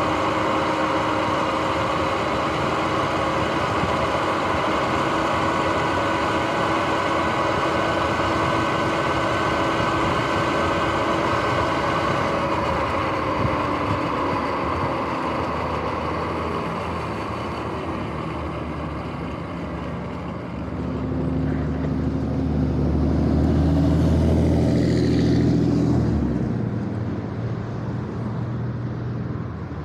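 Sur-Ron X electric dirt bike underway, its noisy-bearing drivetrain whining in several steady tones over tyre and wind noise; the tones sink and fade as the bike slows to a stop. About two-thirds through, a passing motor vehicle's engine rumbles low and loud for a few seconds, then fades.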